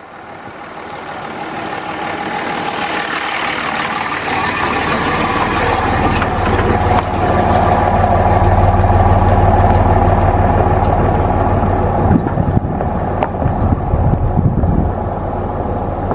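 Pickup truck carrying a truck camper pulling away on a gravel road, its engine running and growing louder over the first half.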